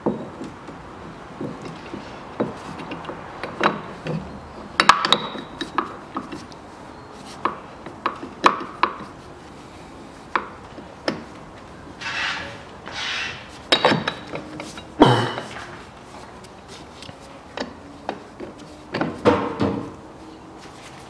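Irregular metallic clinks and knocks of tools and parts being handled as an engine-mount bracket is fitted in a car's engine bay, with a short scraping rub about halfway through.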